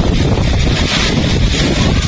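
Heavy rain pouring in a strong windstorm, with wind buffeting the microphone as a loud, steady low rumble under the hiss of the rain.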